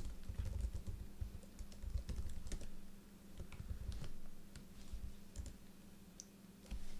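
Typing on a ThinkPad laptop keyboard: quick bursts of key clicks, thinning out after the first few seconds, with a louder knock near the end.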